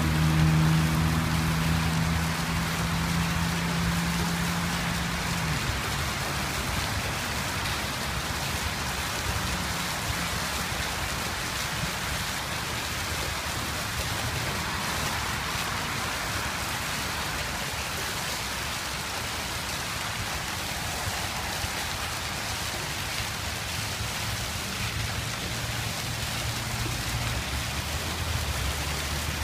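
Fountain jet splashing down into a pond: a steady rush of falling water. A low hum underneath stops suddenly about five seconds in and faintly returns near the end.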